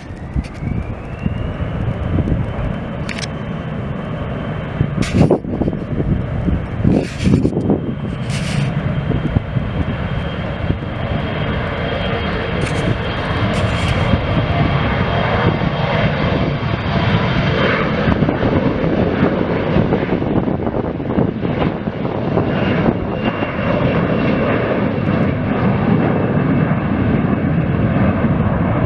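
Airplane engines running: a broad rumble that slowly grows louder, under a high whine that rises over the first two seconds and then holds steady.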